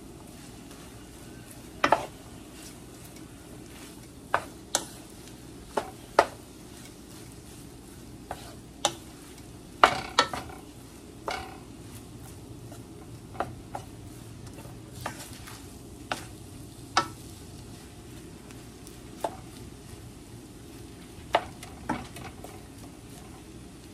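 Wooden spoon stirring fried rice in a large nonstick pan, knocking and scraping against the pan in irregular sharp clicks over a steady low sizzle.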